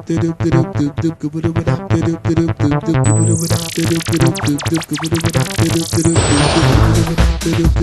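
Electronic dance music: a rhythmic synthesizer pattern with a filtered noise sweep that falls about three seconds in and rises again, building into a heavier bass section near the end.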